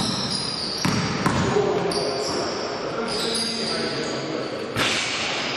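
Basketball game sounds on an indoor court: the ball bouncing with a few sharp thuds, short high-pitched squeaks of sneakers on the floor, and voices in a large hall.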